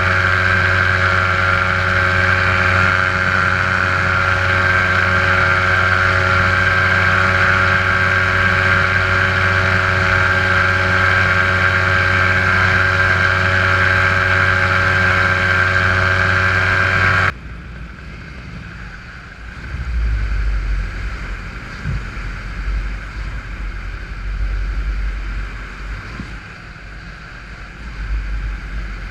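Paramotor engine running steadily at one constant pitch, heard from the pilot's harness. About two-thirds of the way through it cuts off abruptly, leaving a quieter, gusting low rumble of wind on the microphone.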